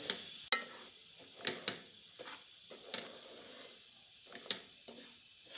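Wooden spatula scraping and knocking against a steel pan while semolina is stirred and roasted in ghee: a few short, irregular clicks and scrapes.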